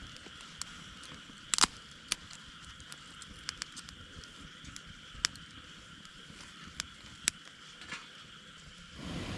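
Campfire crackling: irregular sharp pops and snaps over a steady faint hiss. Near the end, a low rush of wind on the microphone comes in.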